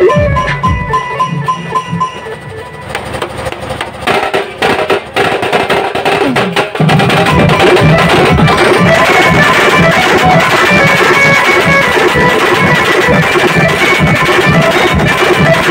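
Sambalpuri baja band playing: barrel drums and a struck metal plate beat out a fast rhythm under a held melody line. The playing thins to scattered drum strokes about a second in, then the whole band comes back in loudly about seven seconds in.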